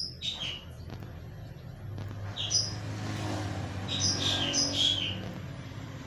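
Lovebird giving short, sharp, high chirps: a couple about half a second in, then a run of several between about two and a half and five seconds in.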